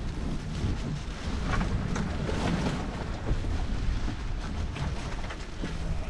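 Wind buffeting the microphone on an open boat at sea, a steady low rumble, with the sea washing around the hull. A few short knocks sound in the first half.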